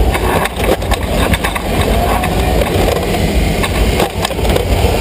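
FRC competition robot driving across the field carpet, its chassis rattling and rumbling, with many sharp knocks. The rumble is picked up through the robot's frame by a camera mounted on it.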